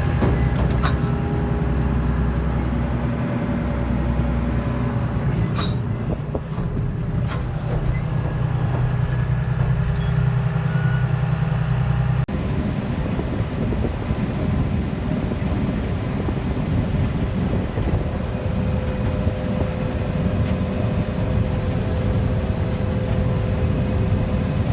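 Combine harvester running steadily while picking corn, its engine and threshing machinery making a constant mechanical drone. About halfway through, the sound changes abruptly to a slightly different steady run.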